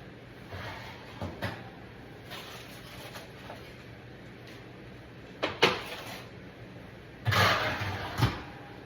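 Kitchen handling sounds: a few scattered knocks and clunks, a sharp knock about five and a half seconds in, then about a second of louder scraping clatter near the end that finishes with another knock.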